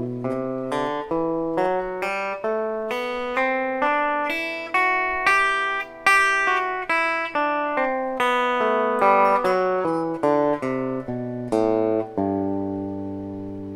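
Semi-hollow-body electric guitar, fingerpicked, playing a two-octave G major scale up and back down, with open strings and close intervals on adjacent strings so that neighbouring notes ring into each other. The final low G is left to ring and slowly fades near the end.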